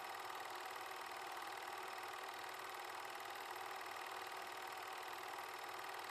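A film projector running steadily: an even mechanical whir with a fast, regular rattle.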